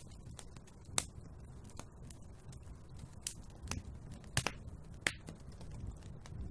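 Wood fire crackling in a fireplace: irregular sharp pops, the loudest about a second in and about four and a half seconds in, over a low steady rumble of burning wood.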